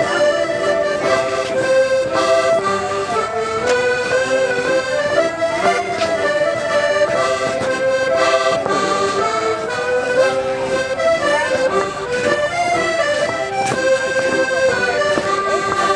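Accordion playing a folk dance tune: a continuous melody of held, reedy notes over chords.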